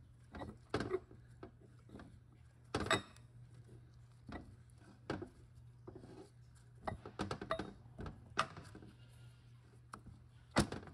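Scattered light knocks and clicks of metal transmission parts handled by hand as a Subaru 5EAT automatic transmission's oil pump assembly is lined up and seated on its aluminium housing. The sharpest knock comes near the end, and a steady low hum sits underneath.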